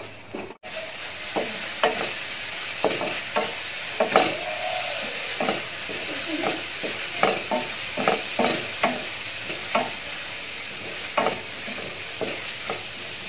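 Wooden spatula stirring and scraping chopped onions and ground spices frying in oil in a pan: a steady sizzle under repeated short strokes of the spatula. The onion-spice masala is being roasted until the raw smell of the spices is gone.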